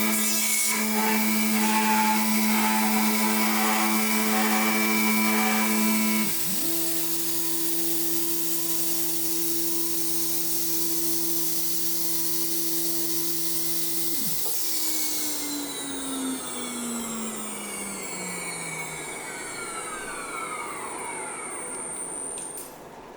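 CNC milling machine spindle running with a steady multi-tone whine, its pitch shifting about six seconds in. After about fourteen seconds the spindle spins down, the whine falling steadily in pitch and fading away.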